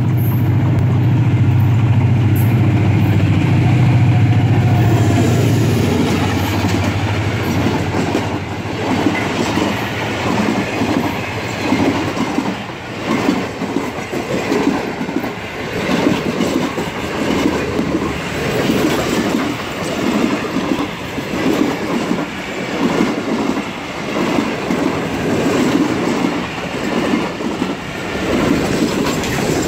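A Pakistan Railways ZCU-30 diesel-electric locomotive passes with its engine running loud in the first few seconds. Then the passenger coaches roll by at speed with a steady clickety-clack of wheels over rail joints, about one beat a second.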